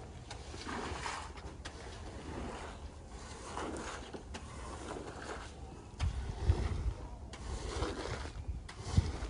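Squeegee scraper pushed in repeated strokes across a foam-soaked shaggy rug, swishing soapy water and suds off the pile. From about six seconds in, low rumbling bumps join the swishing.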